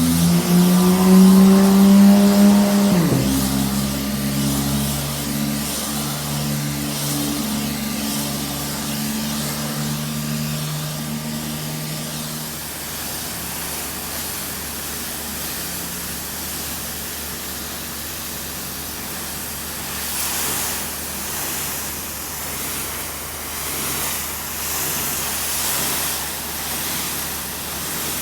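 A pressure washer runs with a motor hum that drops in pitch about three seconds in and dies away about twelve seconds in. Under it is the steady hiss of the high-pressure water spray, which swells and fades in pulses near the end.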